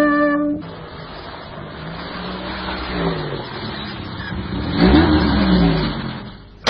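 A music passage cuts off just after the start, followed by steady noise with a motor revving up and down, loudest about five seconds in.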